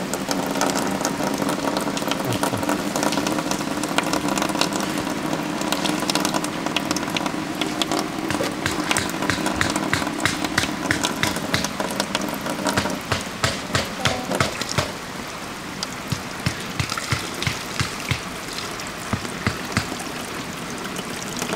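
Water splashing and trickling off the paddles of a turning homemade waterwheel, a dense patter of small splashes. Under it runs a steady low hum that fades out a little past halfway.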